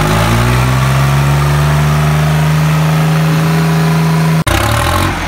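Tractor diesel engine held at high revs with a steady pitch, cutting off abruptly about four and a half seconds in, then rougher, lower engine running.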